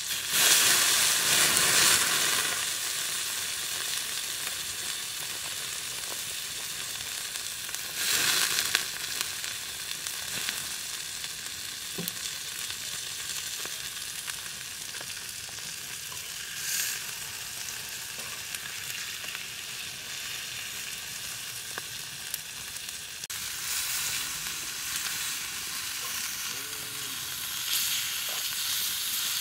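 Marinated chicken legs sizzling on a flat stone heated over an open wood fire: a steady high hiss, with louder surges of sizzle near the start and again about eight seconds in.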